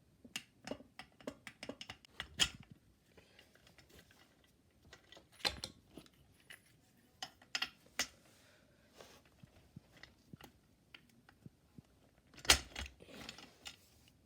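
Clicks, rattles and knocks of plastic and metal office-chair parts being handled as caster wheels are pressed into the chair's base, with a few sharper knocks, the loudest near the end.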